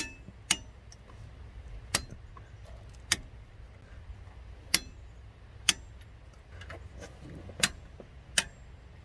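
Click-type torque wrench giving about eight sharp single clicks, spaced irregularly about a second apart. Each click is the wrench breaking over as a power steering pump bracket bolt reaches its set torque of 17 ft-lb.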